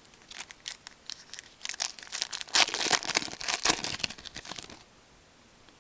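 A foil hockey card pack wrapper crinkling and tearing as it is ripped open, in a run of crackles that is densest about two and a half to three seconds in and dies away near the end.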